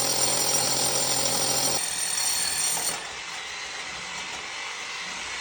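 Electric core drill running, its diamond bit cutting through a concrete slab, with a steady high motor whine and a low hum. About three seconds in the whine drops out and a quieter steady noise remains.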